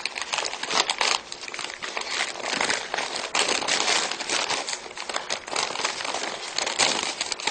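Folded paper amulets crinkling and crackling irregularly as hands unfold and handle the sheets.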